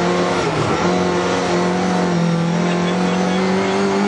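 Rally car engine heard from inside the cabin, running hard at high revs. The pitch dips briefly just under a second in at a gearshift, then holds and climbs slowly as the car pulls.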